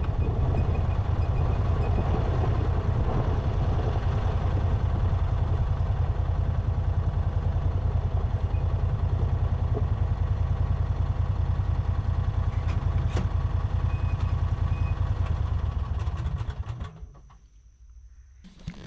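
An engine idling steadily with a fast, even pulse, then shut off about three-quarters of the way through, dropping to quiet.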